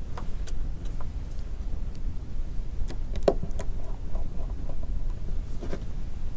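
Small screws and a precision screwdriver clicking and tapping against a smartphone's plastic frame as screws are set and driven, the sharpest click a little over three seconds in, over a steady low hum.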